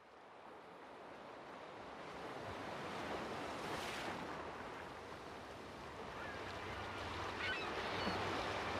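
Open-sea waves washing, fading in from quiet and swelling for a few seconds before easing, with a few faint high chirps and a low steady hum coming in near the end.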